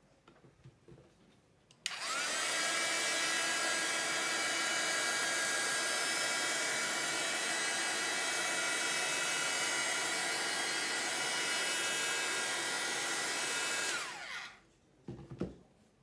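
A handheld electric hot-air blower is switched on about two seconds in, its motor whine rising to speed. It runs steadily for about twelve seconds, aimed at the wet paint, then is switched off and winds down with a falling whine. A couple of light knocks follow near the end.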